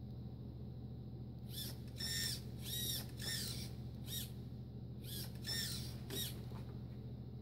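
Two runs of short, high-pitched squeaky chirps over a steady low hum. Each chirp rises and falls in pitch, and the runs come about a second and a half in and again around five seconds in.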